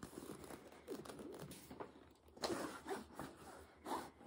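Rustling and scraping of cloth as a cross-stitch piece on black Aida fabric is handled and put away, in short irregular bursts, loudest about two and a half seconds in.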